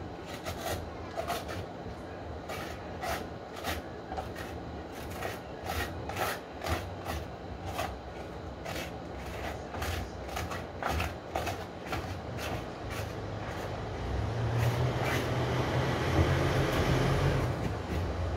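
A knife scraping and knocking against the hard shell of a halved calabash (miracle fruit) as the pulp is dug out, giving irregular sharp clicks about twice a second. A louder low rumble swells up near the end.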